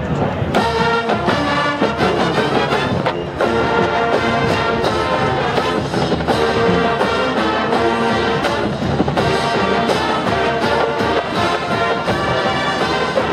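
Marching band playing, brass-led with trumpets and trombones, over a steady drum beat.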